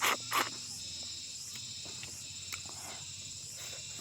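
Crickets chirring steadily in the background, with two short, loud eating noises in the first half second.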